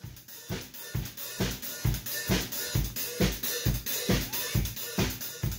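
Intro music: a drum-kit beat, with bass drum and snare hitting steadily about twice a second.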